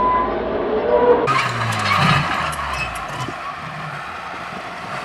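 Mazda car's engine revving hard under load on a tow chain, its drive wheels spinning and slipping on loose dirt. About a second in, a hiss of spinning tyres and thrown grit joins, and the engine eases off toward the end.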